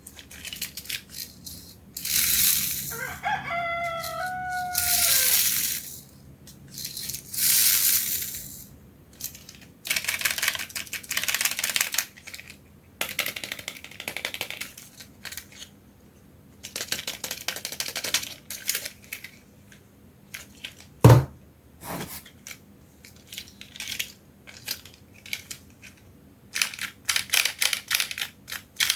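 Small toy cars clattering and clinking as they run down a toy slide, in repeated bursts of rattling with many quick clicks, and one hard knock about twenty-one seconds in.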